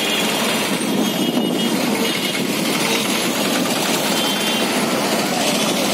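Steady engine and road noise heard from a moving vehicle in traffic.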